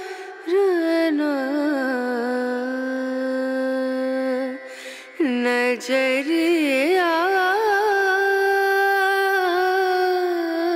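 Background music: a solo voice singing a slow, heavily ornamented melody with long held notes and quick pitch bends, breaking off briefly about halfway before going on.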